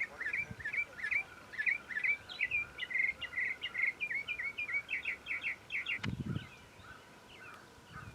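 A songbird singing a long, quick series of repeated slurred chirping notes that stops about six seconds in, followed by a soft low thump.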